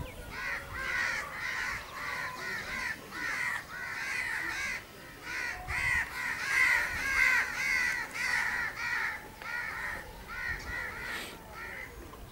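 Birds calling continuously: many short, arched calls repeated several times a second and overlapping, loudest about six to seven seconds in. A brief low rustle comes near six seconds in.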